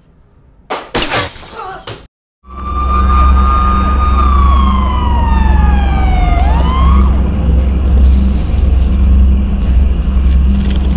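A sudden crash with shattering, then after a short break a police siren wails, holds, falls in pitch and whoops back up about halfway through, over a deep steady rumble.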